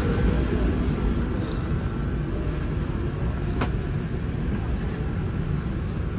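Steady low rumble inside the cabin of an Airbus A350-900 airliner, with one light click about three and a half seconds in.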